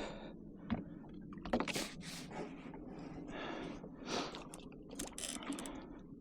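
Irregular water splashes with a few sharp knocks, from a hooked fish being fought and brought in beside a kayak.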